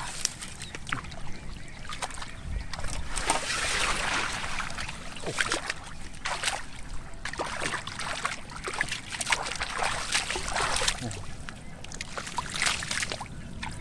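Water splashing and sloshing in irregular bursts, with scattered sharp clicks and knocks.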